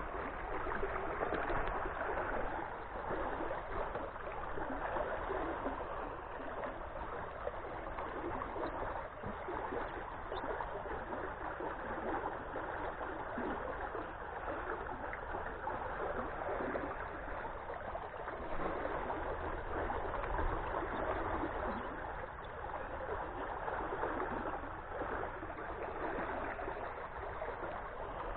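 Stream water rushing and gurgling steadily as the current flows past a pipe lying in the water.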